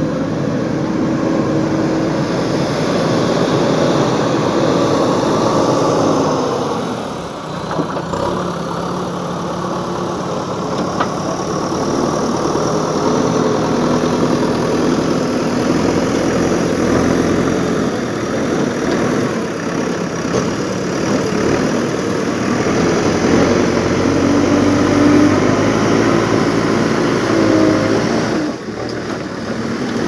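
JCB backhoe loader's diesel engine running as the machine drives and works through sand, its pitch rising and falling with the throttle. The sound dips briefly twice.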